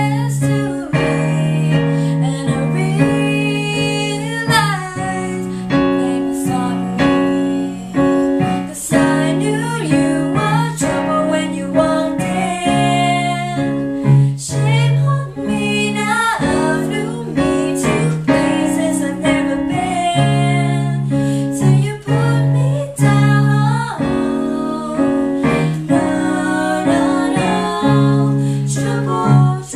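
Two women's voices singing a pop song, at times together, over sustained chords on a Roland RD-150 digital stage piano.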